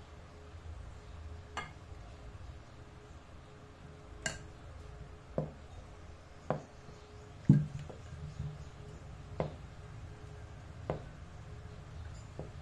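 Spoons knocking against glass mixing bowls as flour is scooped from one bowl into another and stirred: about eight separate taps and clinks, the loudest a little past halfway.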